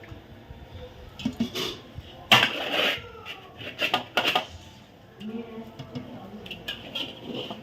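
Kitchen clatter of metal pots and utensils: a few irregular knocks and clanks, the loudest a little over two seconds in, with faint voices in the background.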